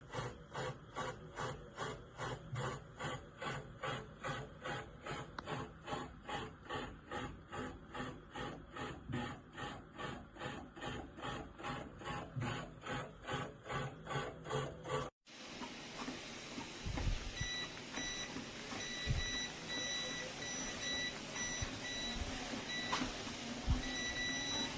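Walking-pad treadmill running with a steady rhythm of about two and a half beats a second, like feet striking the moving belt. After an abrupt cut about 15 seconds in, a high electronic beep repeats on and off over a steady hum.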